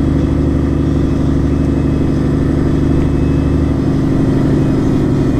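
Semi truck's diesel engine running steadily while pulling a loaded trailer, heard from inside the cab as a loud, deep drone. About four seconds in the lowest rumble changes character.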